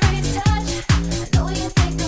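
Bassline house music: a four-on-the-floor kick drum about twice a second under a bass line stepping between held notes.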